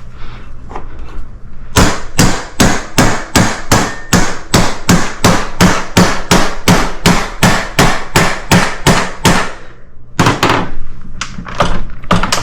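Hammer blows on a steel gun safe: a steady run of sharp strikes, about three a second for some eight seconds, then a brief pause and a few more, less even strikes near the end.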